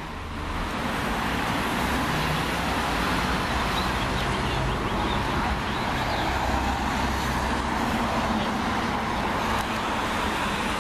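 Road traffic: cars and SUVs driving past on a multi-lane road, a steady rush of tyre and engine noise that swells during the first second.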